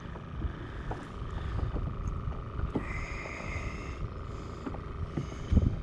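Wind rumbling on the microphone with small knocks and bumps from handling aboard the kayak, a couple of heavier thumps near the end, and a brief high-pitched sound about three seconds in.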